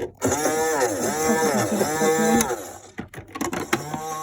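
Toy washing machine's electronic sound effect playing: a repeating pattern of swooping, warbling tones, roughly one swoop a second, broken by a few clicks and a short pause about three seconds in before it starts again.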